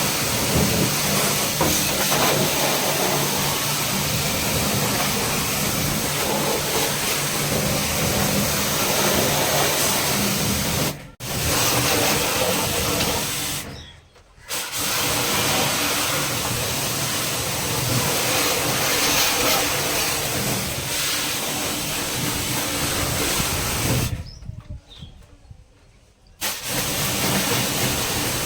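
Portable pressure-washer pump running with the hiss of its water jet, as used to wash out a split AC unit. It cuts out three times, twice briefly and once for a couple of seconds near the end.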